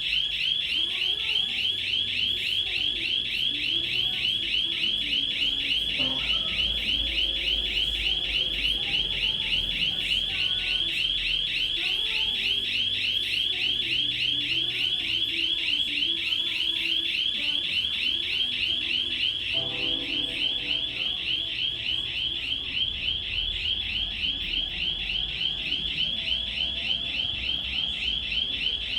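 Panic alarm sounding continuously: a loud, high-pitched electronic tone warbling rapidly without a break.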